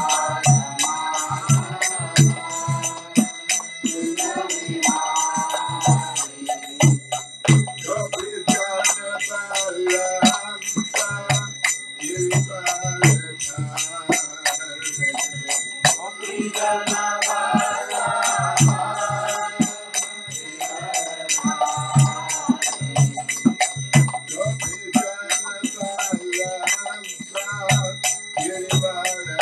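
A man singing a devotional chant, accompanying himself on karatalas, small hand cymbals struck together in a steady quick rhythm that keeps up a bright ringing. A low beat pulses beneath the singing.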